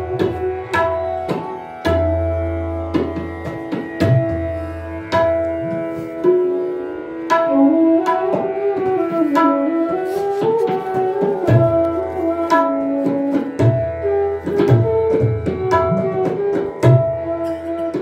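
Bansuri flute playing Hindustani classical raga Abhogi, accompanied on tabla in ada chautaal. The flute melody glides and holds between notes over crisp tabla strokes and deep, ringing bayan bass strokes.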